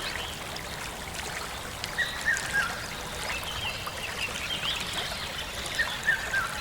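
Many small birds chirping and calling over a steady background hiss of outdoor ambience.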